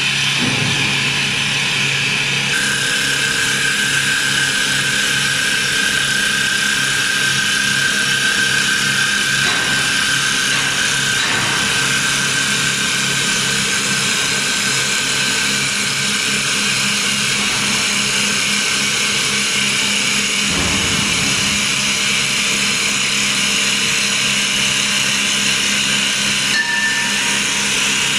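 Double-axis CNC wood lathe turning two wooden spindles at once, its cutters shaving the spinning blanks. A steady machining noise with a high whine running through it.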